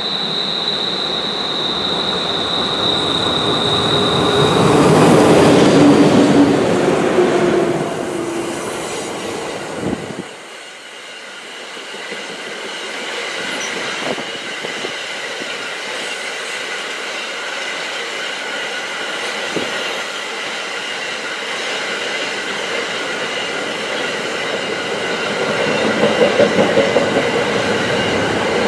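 A freight train of car-transporter wagons, hauled by ÖBB class 1142 and 1116 electric locomotives, passes close by. A steady high wheel squeal comes first, then the locomotive is loudest going past a few seconds in. The wagons roll on with steady squealing wheels on the curve, and near the end there is a quick run of rhythmic wheel clacks.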